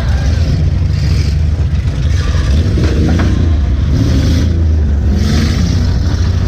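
Demolition derby cars' engines running and revving hard together, with clattering and scraping of metal from the cars hitting each other.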